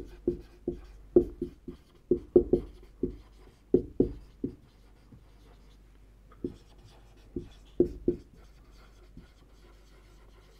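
Marker pen writing on a whiteboard: a quick run of short squeaky strokes and taps as words are written, a pause, a second cluster of strokes, then it stops near the end.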